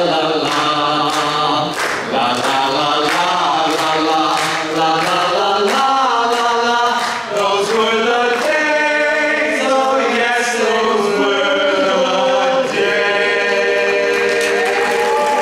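Barbershop quartet of four men's voices singing a cappella in close four-part harmony, moving through chords and ending on a long held chord. Applause starts near the end.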